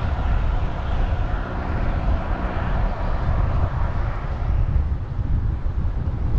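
Wind rushing over the microphone of a moving bicycle, with the steady hum of its tyres on the tarmac.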